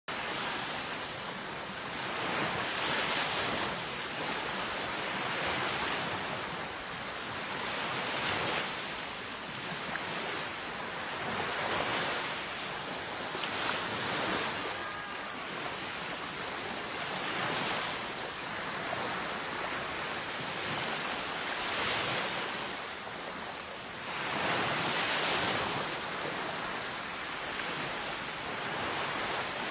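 Small waves breaking and washing up a sandy beach, the surf swelling and ebbing every few seconds.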